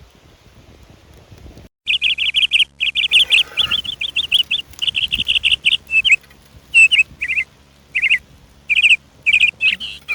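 A bird calling close by in rapid, high-pitched trilled chirps. The calls start suddenly about two seconds in as fast runs of notes, then break into shorter phrases spaced about half a second apart.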